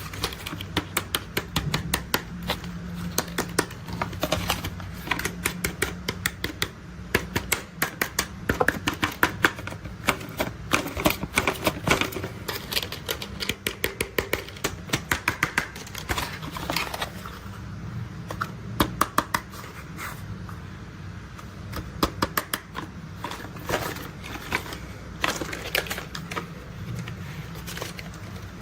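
Toy construction vehicles being tapped and handled: quick runs of sharp taps and clicks in irregular clusters over a steady low rumble.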